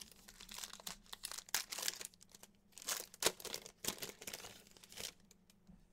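Foil trading-card pack wrapper crinkling and rustling in the hands, with irregular crackles as it is handled and opened.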